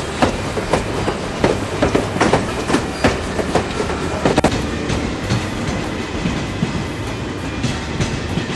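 Train running on rails, its wheels clattering over the rail joints with sharp clicks about twice a second, settling into a steadier rumble with fewer clicks after about four and a half seconds.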